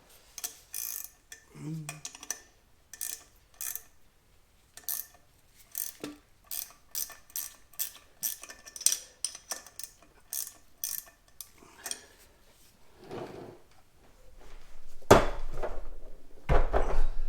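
Hand ratchet clicking in short runs as the nut holding the turbocharger is worked loose. Near the end come a few louder metal knocks and scrapes, with one sharp strike.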